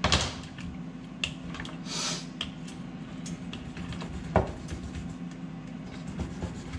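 Kitchen handling sounds as raw chicken wings are basted in a bowl: tongs clicking and wet meat squishing, with scattered knocks, the sharpest about four seconds in. A steady low hum runs underneath.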